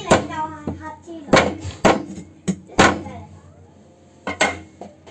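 Heavy kitchen cleaver chopping into a coconut's fibrous husk on a wooden board: about six sharp whacks at irregular intervals.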